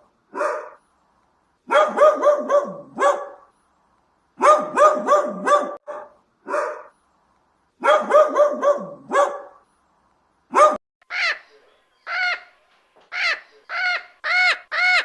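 Animal calls: three bursts of quick, pitched calls, then single calls that rise and fall and come faster near the end.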